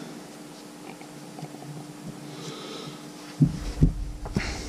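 Handling noise as a cotton t-shirt is turned over and its collar tag fingered on a tabletop, with a few short low thumps from about three and a half seconds in. A faint steady hum runs underneath.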